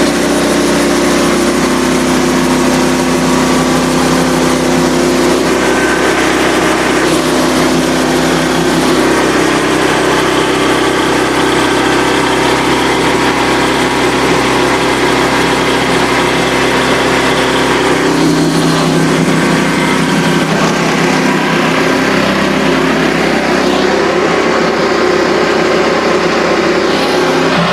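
A portable band sawmill's gas engine running steadily at high throttle while the blade cuts through a red oak log, with a slight change in pitch about two-thirds of the way through.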